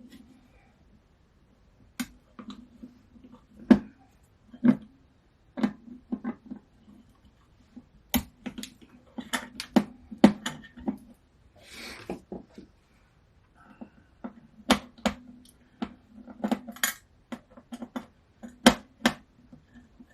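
Irregular sharp metallic clicks and clinks of hand tools and small metal parts being handled on a vintage turntable as a metal shield is taken off, with a brief scrape near the middle.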